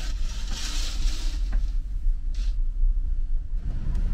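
Steady low rumble of the ferry Shimanto's engines running under way. About half a second in there is a fabric swish as a bed curtain is drawn aside, and a shorter swish follows about two and a half seconds in.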